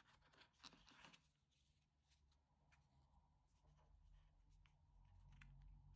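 Near silence, with a few faint clicks about a second in and a faint rustle near the end: a smartwatch case being lifted out of its cardboard box tray and handled.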